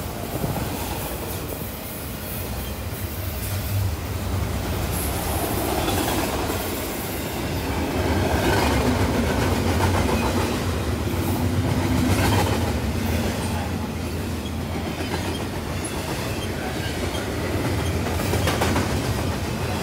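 A freight train of autorack cars and double-stacked intermodal container cars rolling past close by, a steady rumble of steel wheels on the rails. It grows louder for a few seconds midway, then eases.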